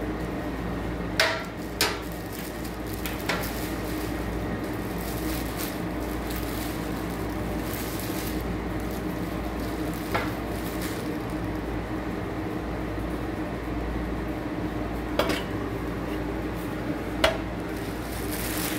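A plastic-wrapped electric plancha grill plate and its lid being handled on a countertop: about six sharp knocks and clinks, two close together about a second in and two more near the end, over a steady low hum.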